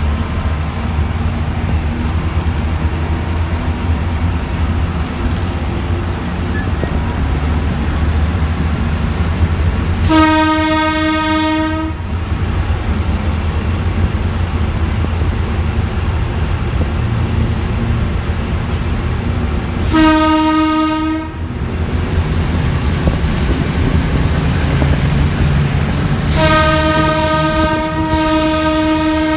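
Diesel-electric locomotive running under way with a steady low engine rumble. Its horn sounds three times on one steady note: a blast of about two seconds, a shorter one, then a long blast starting near the end that is still sounding.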